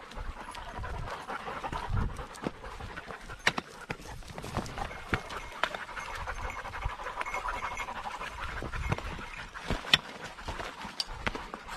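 Heavy panting close to the microphone, with footsteps crunching over stones and dry brush snapping in frequent sharp clicks.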